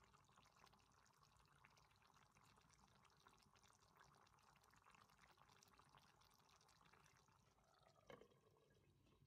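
Faint bubbling and crackling of coconut-milk sauce simmering around long beans in a pan, with one brief louder clink about eight seconds in as a glass lid is set on the pan.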